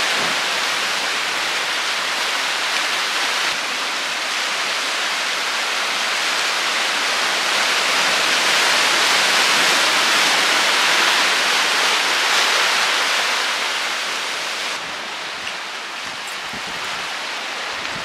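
Sea surf churning and washing over rocks: a steady rush of foaming water that swells through the middle and eases off somewhat near the end.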